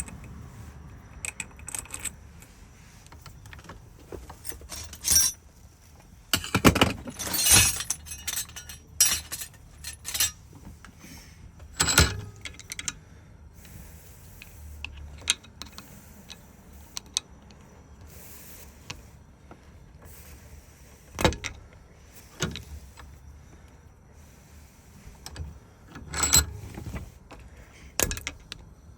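Small metal parts of a Ford lock cylinder and keys being handled: scattered sharp clicks, clinks and short scrapes, with a busier rattle about seven seconds in.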